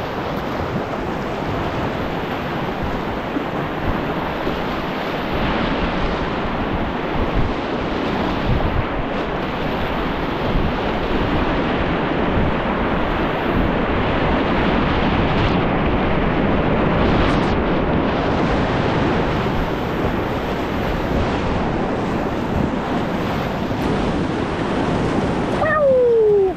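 Whitewater river rapids rushing steadily, with wind buffeting the microphone. Near the end, a short loud tone falls in pitch.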